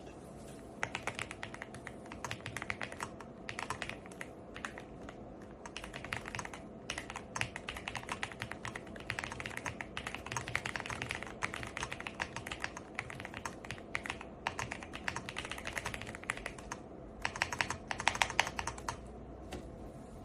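Typing on a mechanical keyboard fitted with AKKO PBT double-shot keycaps in MDA profile: runs of rapid keystroke clacks broken by short pauses, the loudest flurry a couple of seconds before the end.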